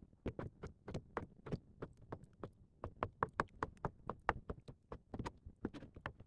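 Kitchen knife slicing black konjac (konnyaku) into strips, each cut knocking on a plastic cutting board: a quick, fairly even run of about four knocks a second.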